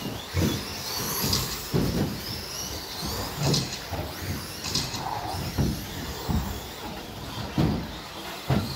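Electric 1/10-scale RC stadium trucks with 13.5-turn brushless motors running on an indoor carpet track: high motor and gear whine over a steady hiss, with about eight irregular low thumps as trucks land jumps and knock into each other after a pile-up.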